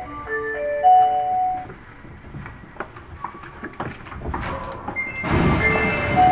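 Inside an Osaka Metro 30000-series subway car: a short electronic chime of a few held notes, then the train's running noise with scattered rail clicks. About five seconds in the running noise swells louder.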